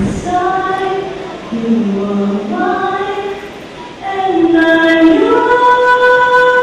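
A woman singing a slow song into a microphone, holding each note long. After a short breath about four seconds in, her voice slides up to a higher note and holds it.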